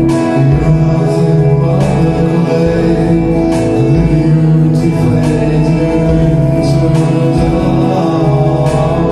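Live rock music: electric guitar played over sustained chords and a steady low bass, with a few light percussive hits.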